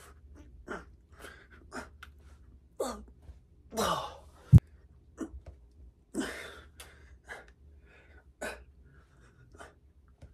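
A man's sharp, forceful breaths, puffed out one after another as he pushes through a set of lateral raises. A single sharp click about four and a half seconds in is the loudest sound.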